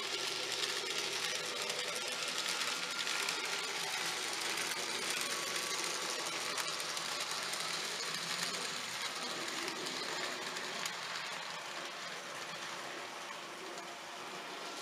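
N gauge model trains running on the layout: a steady sound from their small electric motors and wheels on the track, easing slightly near the end.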